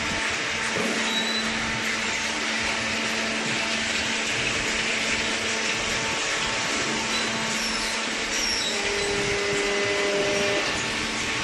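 Hydraulic baler running, its electric motor and hydraulic pump giving a steady hum under an even mechanical hiss, with a slightly higher tone joining in for a couple of seconds near the end.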